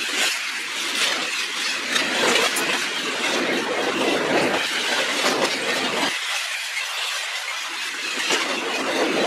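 Freight train cars rolling past at speed, a steady rushing rumble with repeated sharp clicks from the wheels.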